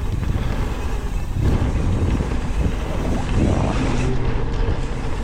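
Mountain bike rolling down a dirt bike-park trail: a steady rumble of tyres on dirt, with wind buffeting the microphone.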